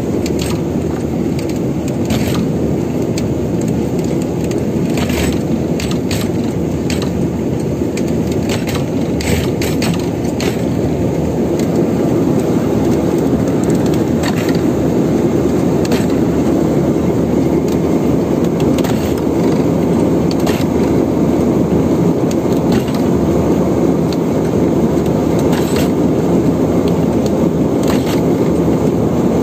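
Fishing boat's engine running steadily, with scattered light clicks and knocks.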